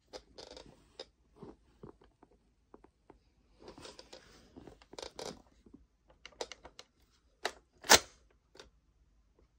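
Tokyo Marui AA-12 airsoft shotgun being handled: scattered clicks, taps and rustling from its plastic body and folding stock, with one sharp clack about eight seconds in, the loudest sound.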